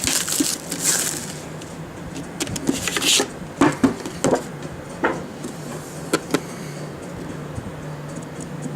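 A trading-card box being opened by hand: rustling and scraping of wrapper and cardboard for the first few seconds, then scattered sharp clicks and taps as the packaging is handled, over a steady low hum.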